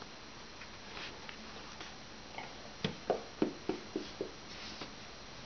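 Small hands tapping and patting on a tablet computer: a run of about six short soft taps a little past the middle, with a few fainter clicks before.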